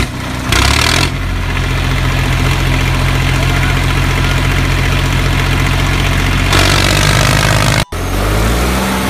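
Tractor engine sound idling steadily, with louder, rougher stretches about half a second in and again from about six and a half seconds. It cuts out for an instant near the end, then rises in pitch as if revving.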